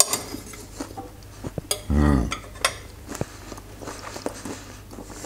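Knife and fork clicking and scraping on a china plate as fried balkenbrij is cut, a few separate light clinks. About two seconds in comes a short low hum from a man's voice, an 'mmm' while he eats.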